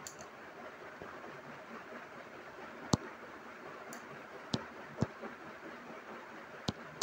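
Five sharp, irregularly spaced clicks over a steady faint hiss, the loudest about three seconds in. They are input clicks made while drawing straight lines on an on-screen whiteboard.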